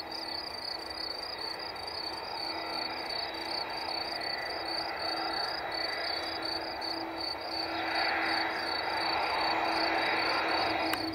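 Insects chirping in a fast, even pulse over the distant rushing noise of an Airbus A330's jet engines, which swells from about eight seconds in.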